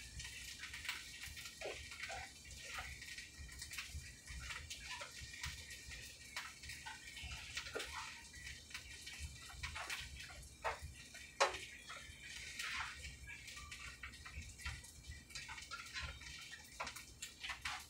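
A spoon scraping and clicking irregularly against a skillet as a steak, mushroom and cheese filling is stirred, over a steady faint hiss.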